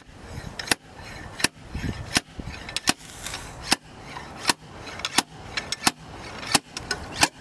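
Home-welded slide hammer, threaded into the final drive cover of a CAT E70B mini excavator, being worked to pull the cover: sharp metal knocks in a steady rhythm, about one every three-quarters of a second.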